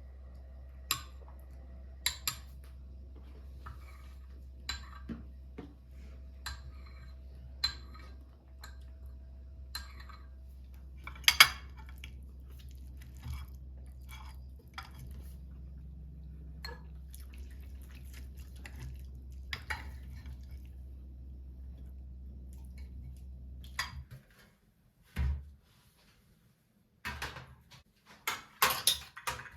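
Dishes and cutlery clinking and knocking now and then, with one louder clink about 11 seconds in and a quick run of clatter near the end. A steady low hum lies under the first part and cuts off suddenly about 24 seconds in.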